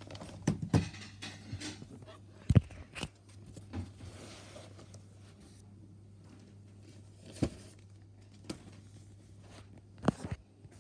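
Handling noise of a phone and a picture book being moved about: scattered knocks and bumps, the loudest about two and a half seconds in, with a brief rustle near the middle, over a steady low hum.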